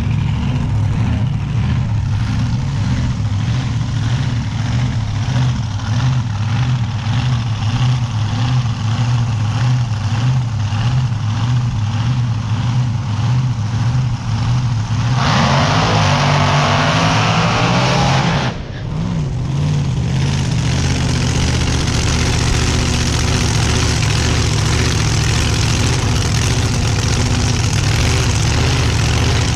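Motor vehicle engine running with a steady low hum, rising into a louder, rougher stretch about halfway through that lasts around three seconds, then settling back to a steady run with a hiss of noise over it.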